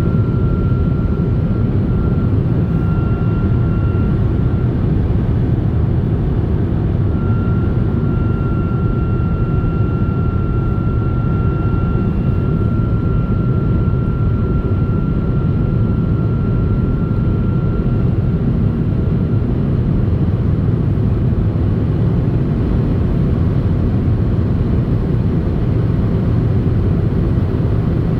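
BMW 2 Series Gran Tourer (F46) at speed: a steady low rumble of road and drive noise with a thin, high, steady whistle over it. The whistle sounds for the first few seconds, drops out briefly, returns for about twelve seconds, then fades away.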